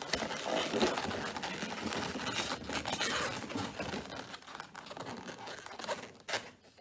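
Latex modelling balloons rubbing against each other as a clear balloon is twisted and tied onto a balloon figure's hand, dying away after about five seconds, with one sharp click a second later.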